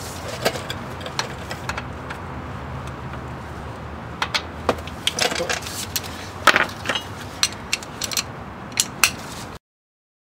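Steel breaker bar and socket clinking and clanking against the caliper bracket bolt as the bolt is fitted and worked loose by hand: irregular sharp metal clicks over a steady low hum, cutting off abruptly near the end.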